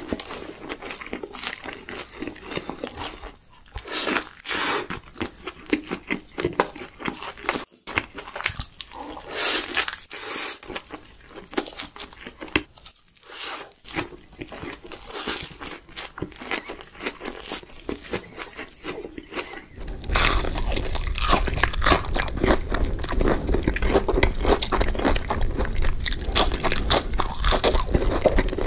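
Close-miked eating: crunchy bites and wet chewing of fried fast food, in irregular crackling bursts. About twenty seconds in, it cuts abruptly to a louder, fuller recording of another person chewing.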